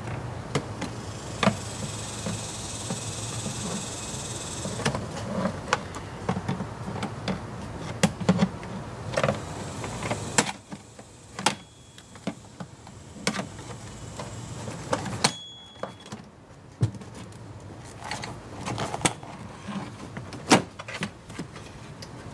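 Plastic clicks, knocks and rattles as a car door trim panel, its clips already popped loose, is worked off the door, with a higher hiss for about three seconds near the start and two short high tones in the middle.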